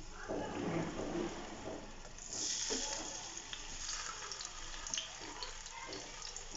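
Boiled potato halves sizzling and crackling in hot oil in a frying pan, as the last ones are set down; the sizzle grows louder about two seconds in and holds steady.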